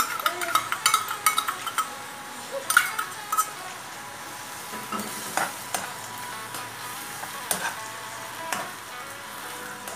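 Baby kailan stir-frying in a nonstick wok with an oyster sauce and dark soy mixture, sizzling steadily while a spatula scrapes and taps through the greens. The scraping is busiest in the first two seconds and again around three seconds, then comes in sparser strokes.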